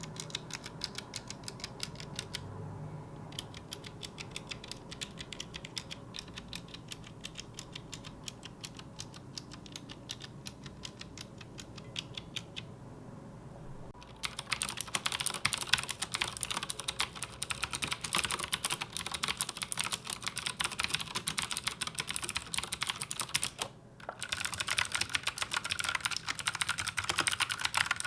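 Fast typing on clicky mechanical keyboard switches of the blue type (Gateron Blue, Cherry MX Blue, Razer Green), a dense run of sharp clicks. It comes in separate runs with brief pauses about 2.5 s in, 13 s in and 24 s in. The runs from about 14 s on are much louder and brighter than the earlier one.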